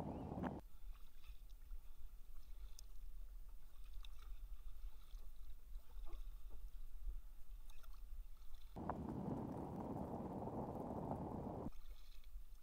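Kayak paddling on calm water: small drips and splashes from the paddle, with a low rumble that cuts in and out abruptly, for about three seconds in the second half.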